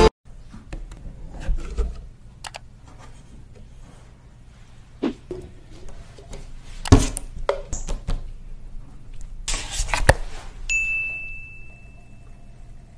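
Thick metallic silver slime being pressed and worked by hand, with scattered soft squelches and small clicks and pops, the sharpest about halfway through. Near the end a steady high tone sounds for about two seconds.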